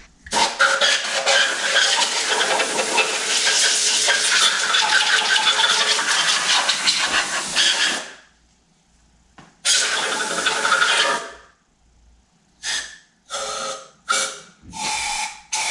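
A loud hiss lasting about eight seconds, a shorter hiss starting about nine and a half seconds in, then several brief bursts near the end.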